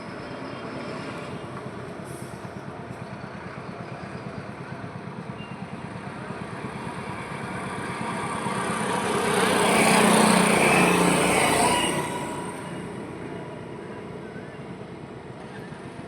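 Road traffic running steadily. One vehicle passes close by, building from about seven seconds in, loudest around ten seconds, then fading away.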